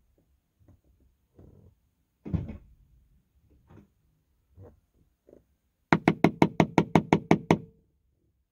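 Scattered knocks and handling noises from windshield chip-repair tools, with a louder thud about two seconds in. Near the end comes a rapid run of about a dozen sharp clicks, some seven a second.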